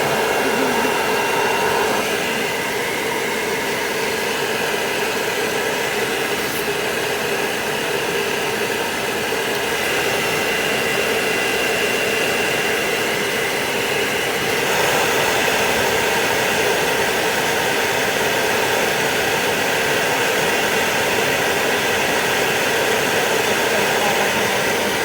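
Hair dryer blowing steadily while drying a toy poodle's coat, a continuous airy whir with a faint steady hum; its sound shifts a little about two seconds in and again around fifteen seconds in.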